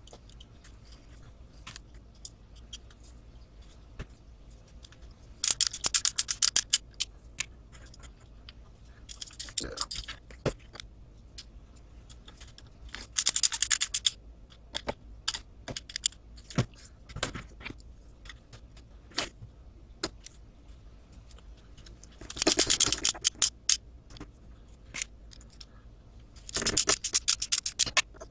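Hand screwdriver driving small screws into a plastic RC servo mount, heard as five short bursts of rapid clicking, with light clicks of parts being handled in between.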